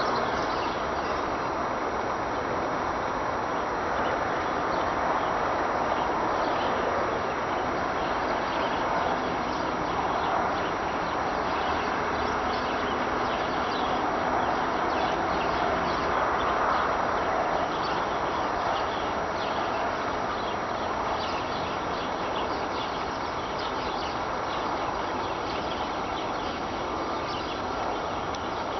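A constant wind-like rushing noise with no wind blowing, steady throughout with a faint hum in it. It is a mystery sound of unknown origin, which the recordist insists is not expressway traffic.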